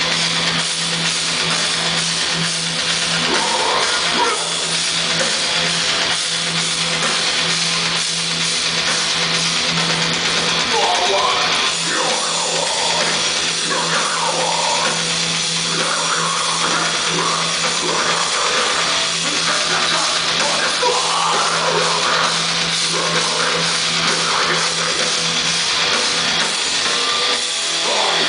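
Deathcore band playing live and loud, heard from the crowd: distorted guitars and pounding drums, with harsh screamed vocals over the band from about eleven seconds in.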